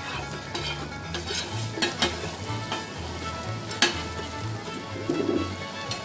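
Egg sizzling on a flat-top griddle, with steel spatulas scraping and clicking against the metal surface several times as the egg is pushed in around the bread.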